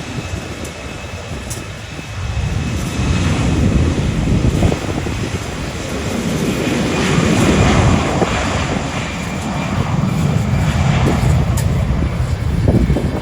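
Jet airliner engine noise swelling and fading, mixed with strong gusts of wind buffeting the phone's microphone.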